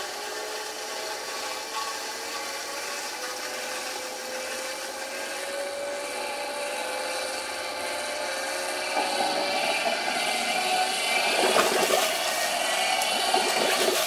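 Canister vacuum cleaner motor and impeller spinning underwater, its whine rising slowly in pitch as it gains speed. From about nine seconds in, a rushing, splashing churn builds and grows louder: the impeller has pushed back the water under its housing until the trapped air breaks free and bubbles out.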